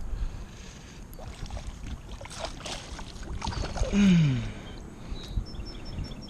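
Water splashing and sloshing around a kayak while a hooked fish is fought, with wind rumble on the microphone. About four seconds in, a man lets out a loud groan that falls in pitch.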